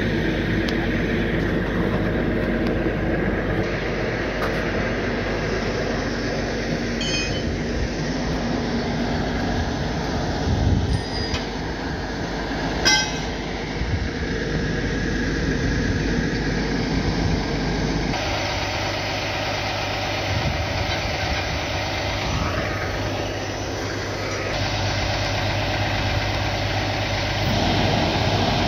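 Heavy-duty tow truck's diesel engine running steadily.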